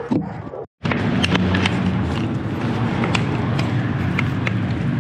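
Steady low engine hum of a vehicle running nearby, with sharp footsteps on cobblestone paving every half second or so. It starts after a brief dropout to silence just under a second in.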